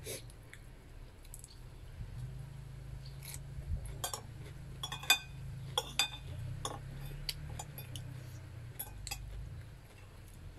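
Metal spoon and fork clinking on a ceramic plate during a meal: a scatter of sharp clicks, thickest in the middle of the stretch, over a low steady rumble.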